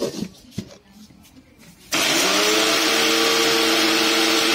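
A few clicks and knocks as the lid is fitted on a steel mixer-grinder jar. About two seconds in, the electric mixer grinder switches on: its motor whine rises briefly, then runs steady at high speed as it grinds chopped onions into a paste.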